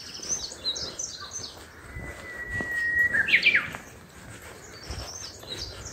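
Songbirds singing: quick high chirps at the start and again near the end. About two seconds in comes one long steady whistle that breaks into a short rising-and-falling flourish, the loudest sound.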